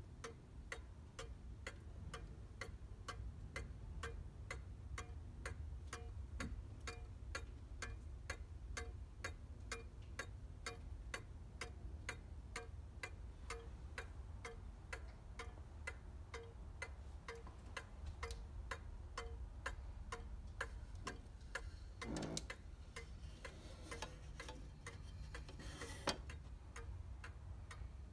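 Antique Ansonia Triumph 8-day mantel clock ticking, a steady, even tick-tock from its pendulum escapement, with a single sharp knock near the end.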